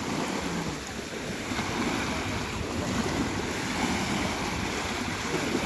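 Small waves washing onto the shore, with wind buffeting the microphone.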